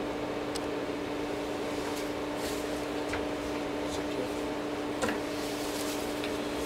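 Steady machine hum, like a fan or air conditioner running, holding a few fixed tones, with a few faint clicks and a small knock about five seconds in.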